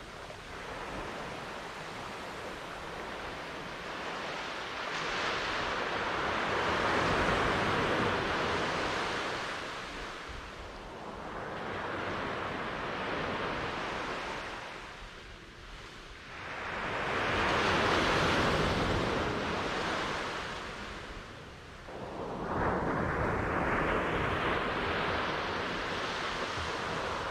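Ocean surf: waves breaking and washing up the shore, the hiss swelling and fading about every five seconds, with one wave breaking sharply about three quarters of the way through.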